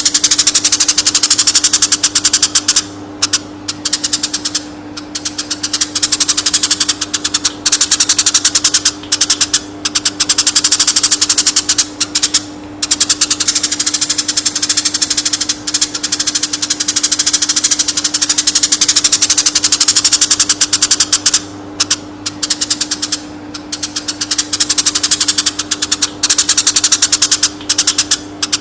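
Eurasian tree sparrows chirping in a rapid, dense stream of high chirps, broken by a few brief pauses, over a steady low hum.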